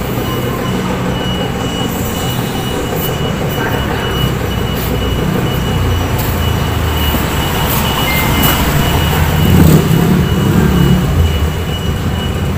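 Steady mechanical rumble of an engine running, swelling louder about nine to eleven seconds in.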